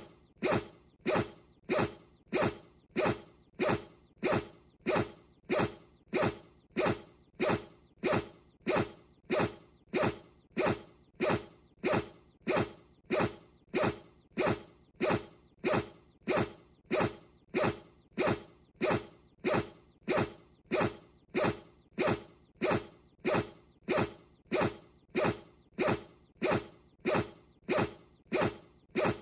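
Bichon Frise dog sneezing over and over in a very even rhythm, about three short sneezes every two seconds.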